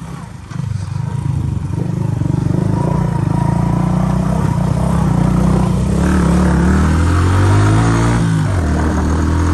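Motorcycle engine running under way, building up over the first second or two; about six seconds in its pitch climbs for a couple of seconds, then drops suddenly shortly before the end.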